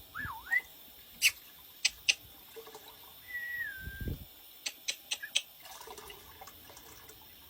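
A bird whistling two short notes that glide up and down in pitch, between a handful of sharp clicks, with a cluster of clicks about five seconds in.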